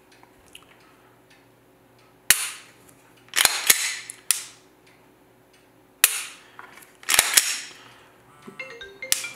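Sharp metallic clicks and snaps from a Glock 17 Gen 5 pistol's slide and parts being worked by hand during reassembly, about six of them spread out with short pauses between, some with a brief rattle after. Near the end a phone ringtone melody starts.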